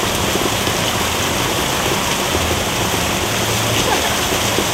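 Fountain water jet spraying up and splashing down onto a wooden deck: a steady rushing hiss of falling water.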